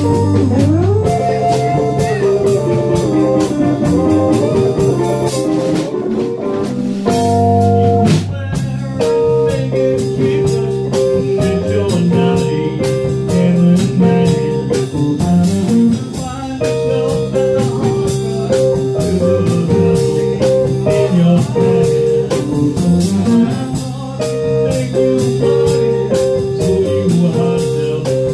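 A live band playing a blues jam: electric guitar lines over bass guitar and a drum kit, with long held notes in the lead line.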